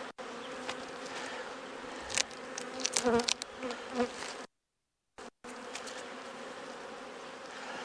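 Honeybees buzzing steadily over an open hive, with a wavering buzz around three seconds in as a bee passes close. Sharp clicks and scrapes of a metal hive tool against the wooden frames come between about two and four seconds in, and the sound drops out briefly just after.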